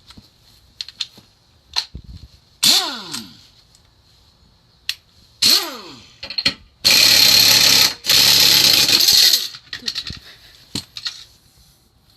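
Power impact wrench running the lug nuts onto a wheel: two short spins that whine down in pitch after the trigger is released, at about 2.5 and 5.5 seconds in. Then two long, loud bursts of hammering from about 7 to 9.5 seconds, with a short break between them, as a nut is run down tight.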